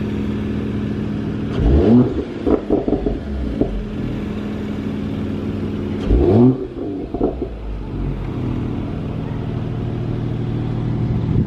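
Mercedes-AMG CLS 53's 3.0-litre turbocharged inline-six idling, blipped twice about four seconds apart. Each quick rev is followed by a rattle of exhaust crackles and pops.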